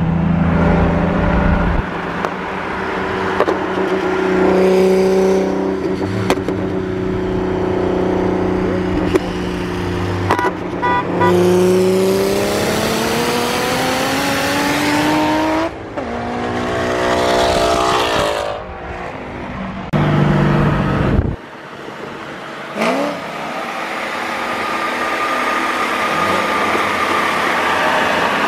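Car engines at high speed during a highway roll race: long stretches of steady engine drone, then an engine note climbing steadily for about four seconds as a car pulls hard under acceleration, with several abrupt changes in the sound.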